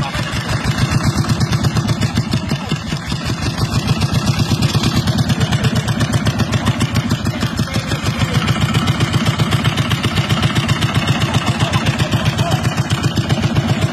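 Vehicle engine running at low, steady revs with an even chugging pulse of about seven beats a second.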